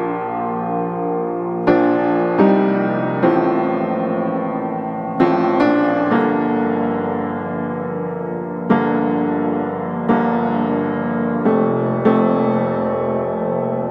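Background piano music: slow chords struck every second or two, each ringing on and fading before the next.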